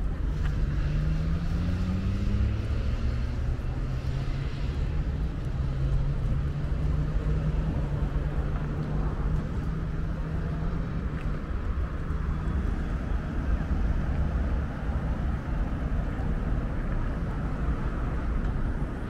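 Street traffic: a vehicle engine hums, its pitch rising over the first couple of seconds and then holding steady, over a heavy low rumble.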